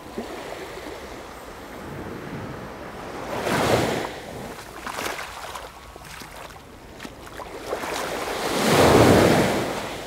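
Surf breaking and washing up the beach in two swells that build and fade about five seconds apart, the second a little louder, near the end.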